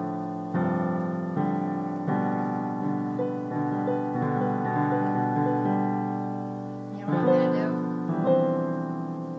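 Piano playing a slow series of chords, each struck and left to ring away, with two louder chords about seven and eight seconds in.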